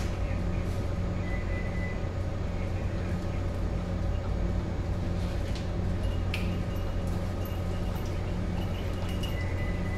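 Steady low hum of a ship's machinery heard aboard a tanker under way, with a low tone that pulses on and off and a few faint clicks.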